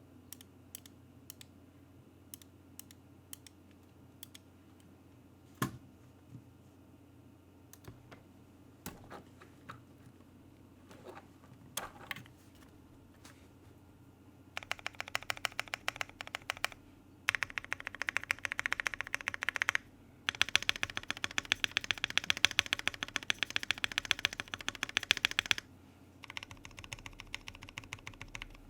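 Keychron Q1 mechanical keyboard with Gateron Black Ink V2 linear switches being typed on: scattered single key presses at first, then about halfway in, fast continuous runs of typing with a brief break near the end.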